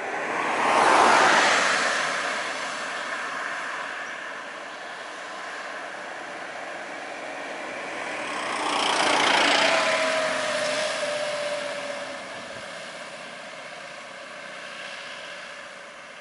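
Motor vehicles passing close by on a road, each a rush of engine and tyre noise that swells and fades: one about a second in and another about nine seconds in. After the second, a thin whine slides slightly down in pitch for a couple of seconds.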